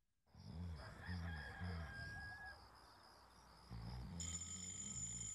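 A rooster crow, rising and then held for over a second, over a steady beat of low thumps about twice a second. About four seconds in, a steady high electronic alarm tone comes in and holds.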